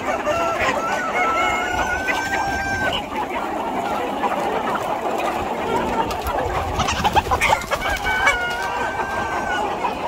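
A large flock of roosters clucking and chattering without pause, with two long cock-a-doodle-doo crows rising over it: one about half a second in lasting some two and a half seconds, another near the end.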